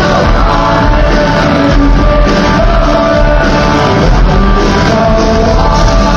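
Live rock band playing loudly, with a male lead singer singing over acoustic guitar, recorded from the audience.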